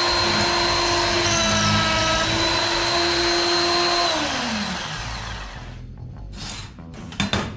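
Small benchtop drill press motor running with a steady whine. About four seconds in it is switched off and its pitch falls as it spins down. Near the end comes one sharp knock.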